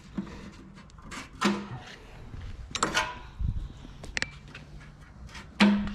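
A few scattered knocks and clicks of hands handling parts, with a low thump about three and a half seconds in.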